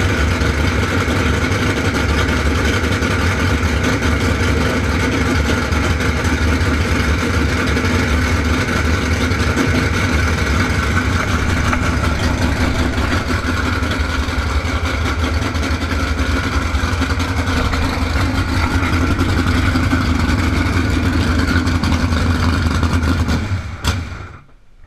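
Drag boat's V8 engine running steadily through open headers, then shut off about a second before the end.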